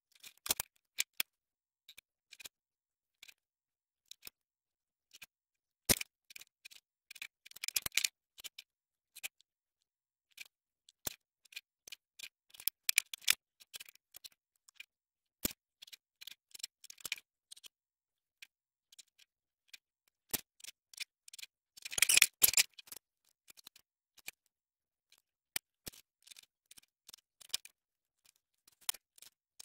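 Pencil scratching along a metal ruler as lines are drawn on a pine block, with scattered clicks and light knocks as the ruler and blocks are set down and shifted on a wooden workbench. The sounds are short and irregular, with a denser run of scratching about two-thirds of the way through.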